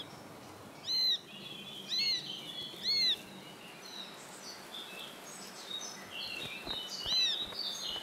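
Eurasian sparrowhawk chick begging from the nest: a thin, high call that rises and falls, given three times about a second apart and again about seven seconds in. Small songbirds twitter faintly between the calls.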